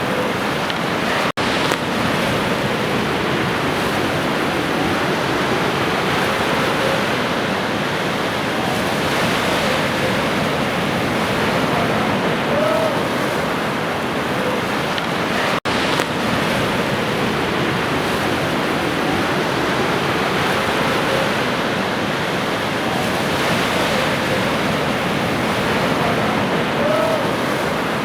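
Ocean surf: a steady wash of waves breaking on a shore. The sound cuts out for an instant twice, about fourteen seconds apart.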